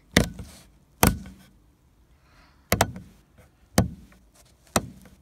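Car interior light switch being clicked on and off repeatedly: six sharp clicks, mostly about a second apart, with two in quick succession a little before the middle.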